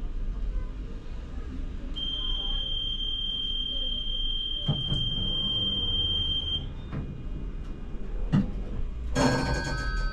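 Low rumble of a ČKD Tatra T6A5 tram, with a steady high electronic warning tone held for about four and a half seconds starting about two seconds in, and a few short knocks. Near the end a passenger-information chime rings, the signal that the next-stop announcement is coming.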